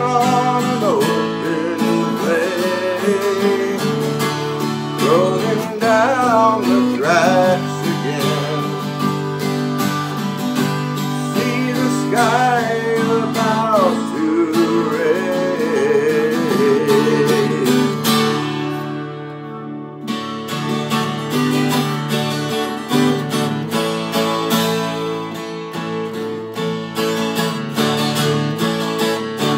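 Twelve-string acoustic guitar strummed, with a man singing over it through roughly the first half. After a brief let-up in the strumming about two-thirds in, the guitar plays on alone.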